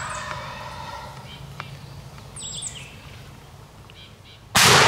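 A wild turkey gobbler's gobble trails off at the start, with small songbirds chirping. About four and a half seconds in, a single loud shotgun blast goes off and echoes away.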